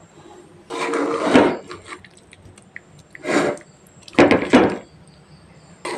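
Metal spatula scraping against the inside of a metal kadai in a few short strokes, turning potatoes in a thick, dry masala. The first and longest stroke comes about a second in.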